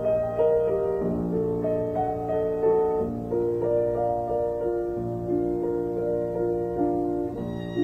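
Background music: a slow piano melody of held notes moving step by step. A violin with vibrato comes in near the end.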